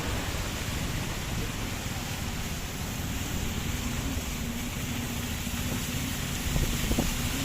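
Steady engine and road rumble of a moving road vehicle, heard from inside. A brief louder bump comes near the end.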